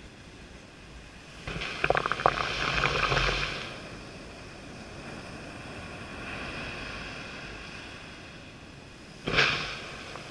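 Surf washing up a sandy beach close to the microphone. About a second and a half in, a wash of foam comes in with a hiss and crackle for about two seconds. A softer swell follows, and a sudden rush near the end fades away quickly.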